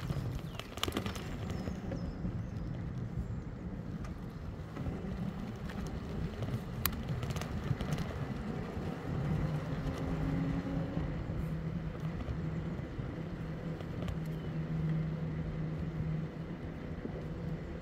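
Riding noise from an e-bike on the road: a steady low rumble, with a low hum that grows stronger about halfway through and a few light clicks.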